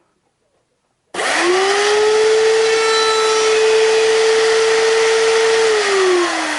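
Router motor switched on about a second in, quickly spinning up to a steady high whine, then switched off near the end, its pitch falling as it winds down.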